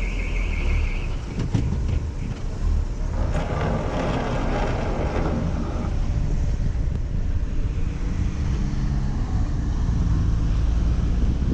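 Car being driven, with a steady low engine and road rumble and wind buffeting the microphone; the noise swells for a few seconds about three seconds in.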